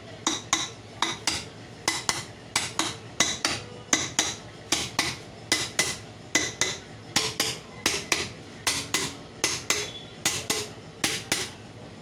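Hammer tapping the metal end cover of a 1 HP monoblock water-pump motor down into place over its bearing. Quick, ringing metallic taps, often in pairs, about three a second, with a short break just after the middle.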